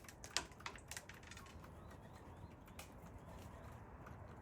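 Crested pigeons pecking seed off a hard surface: a quick scatter of sharp light taps in the first second, then fainter occasional taps.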